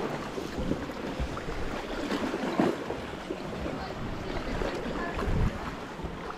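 Sea kayak paddling on calm water: paddle blades dipping and splashing, with water lapping softly against the hull and nearby rock, and a few louder splashes.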